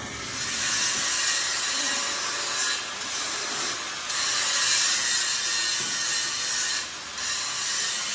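Harsh, steady rasping of a tool cutting or abrading metal on a tractor front-axle part, with a few short breaks about three, four and seven seconds in.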